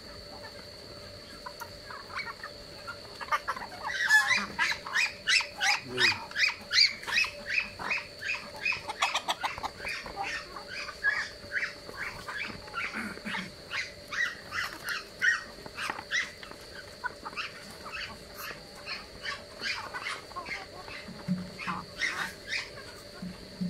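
Mixed flock of ducks, geese and chickens feeding at a bowl of rice. A fast run of short, sharp high sounds, about two or three a second, starts about four seconds in and thins out later.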